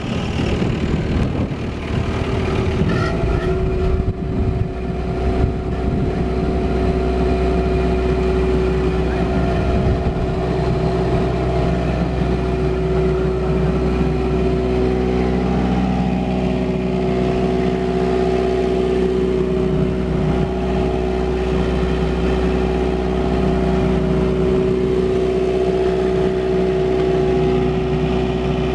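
MQ Power Whisperwatt 25 kVA diesel generator running steadily at constant speed, a loud even engine hum with a steady tone over a low rumble.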